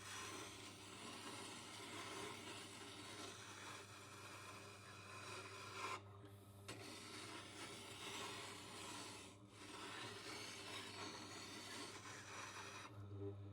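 Woodturning gouge being sharpened on a bench grinder: a steady rasping scrape over the motor's low hum, with short breaks about six and nine seconds in. The hum stops at the very end.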